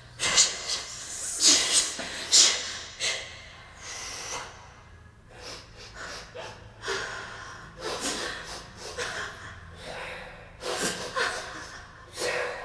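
A woman's voice making sharp, breathy gasps and exhalations in irregular bursts. The loudest come within the first three seconds, then they grow softer.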